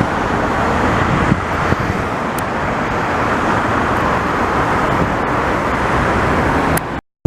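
Boeing 767 jet engines roaring as the airliner passes, a loud, steady rush of noise that cuts off abruptly near the end.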